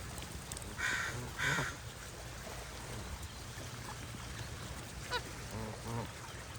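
Geese honking: two loud, harsh honks about a second in, then a few softer calls near the end.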